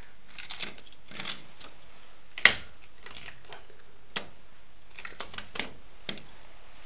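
Scattered clicks and clacks of metal jumper-lead clamps being handled, unclipped and set down on the floor, the loudest a sharp click about two and a half seconds in. The motor is not running.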